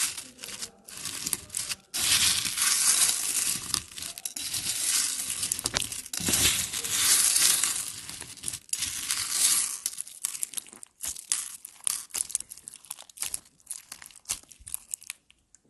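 Clear slime being squished and stretched by hand, making a dense crackling of many small clicks. Near the end it thins out to scattered single clicks.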